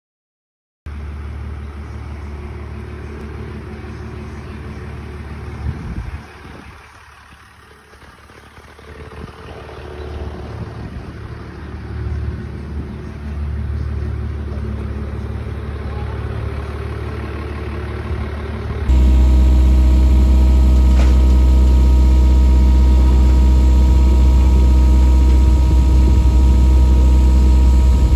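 An engine running steadily at idle. It dips in level for a couple of seconds about a quarter of the way in. After an abrupt cut a little past halfway it comes back louder and steadier, with a strong deep hum.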